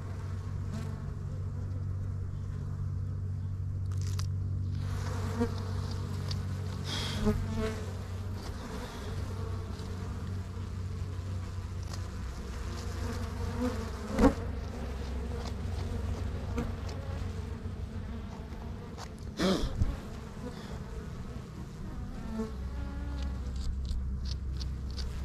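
A swarm of dwarf honey bees buzzing in a steady low hum around their freshly cut wild comb. Two sharp knocks, one about halfway through and one a few seconds later, come from handling.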